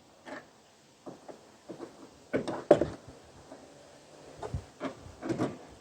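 Scattered short clicks and knocks of tools on metal while the van door's hinge bolts are being undone, loudest a couple of seconds in.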